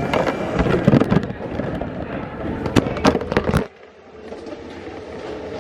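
A run of sharp clatters and knocks over busy background noise, cutting off abruptly after about three and a half seconds to a quieter, steady low hum.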